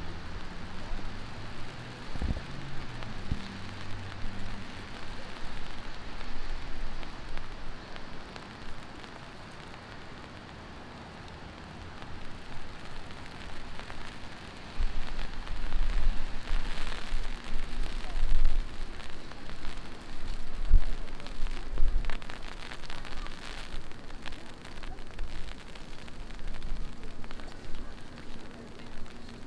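Heavy rain falling steadily, a dense hiss. About halfway through, a deep intermittent rumble joins it.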